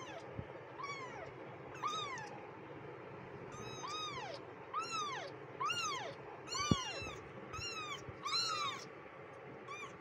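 Very young kittens mewing: a string of thin, high mews about one a second, each rising then falling in pitch, some overlapping as more than one kitten calls. A single sharp click sounds about two-thirds of the way through.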